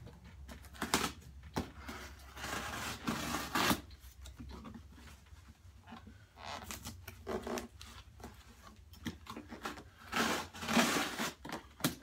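Cardboard shipping box being slit open with a utility knife and shifted about on a workbench: irregular scraping and rustling of cardboard, with a few sharp knocks.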